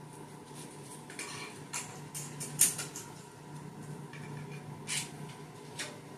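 Clothes and hangers being handled: irregular rustling with light clicks and knocks, the sharpest about two and a half seconds in, over a steady faint hum.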